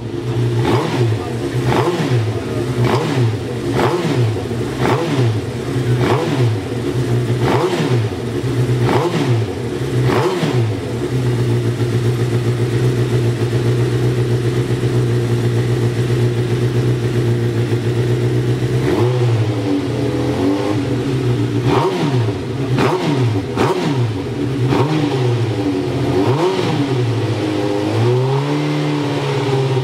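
Racing sidecar's Suzuki GSX-R1000 inline-four engine running, blipped up and back down about once a second for the first ten seconds. It then holds a steady speed for several seconds before more revs and a final rise near the end.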